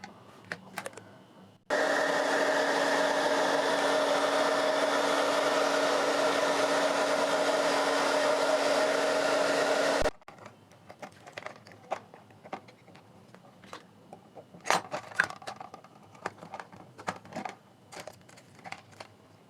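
A hot-air heat blower switches on about two seconds in and runs steadily with a constant hum for about eight seconds, warming the battery's adhesive to loosen it, then switches off. Light clicks and scrapes follow as the battery is worked loose.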